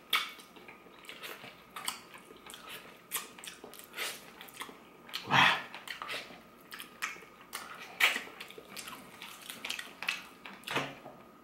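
Close-up eating sounds of a person sucking and chewing meat off a cooked chicken bone: irregular wet smacks and clicks of lips and teeth, with one louder mouth sound about halfway through.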